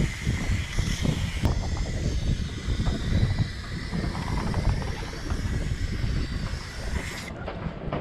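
Aerosol spray-paint can hissing in one long continuous spray of about seven seconds, cutting off sharply near the end, with wind buffeting the microphone.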